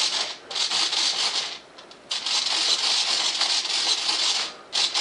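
Scratchy rubbing noise from the handheld camera's microphone being handled, in four bursts of hiss, the longest about two and a half seconds, with short gaps between.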